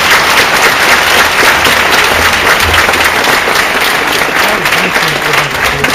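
An audience applauding: dense, steady clapping that stays loud throughout.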